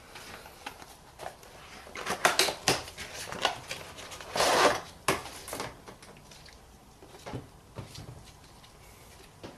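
Handling a car air filter and its plastic airbox: a run of light clicks, knocks and rustling, with one half-second scraping rustle in the middle, then a few scattered clicks.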